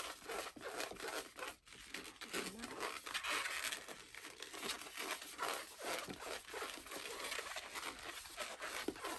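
Inflated pink latex twisting balloon rubbing against itself as it is twisted by hand into small bubbles, a continuous scratchy, crinkly noise.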